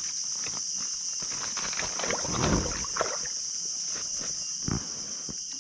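Small-boat paddling noise from an inflatable boat: light knocks and water sounds, with a louder rush about halfway through and a single thump near the end. A steady high insect drone runs underneath.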